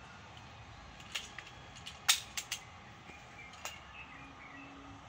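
A handful of short, sharp clicks from handling the PCP air rifle between shots, the loudest about two seconds in. Faint bird chirps come near the end.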